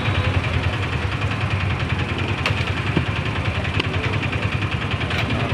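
An engine idling steadily with a low, throbbing rumble, with a few light clicks over it around the middle.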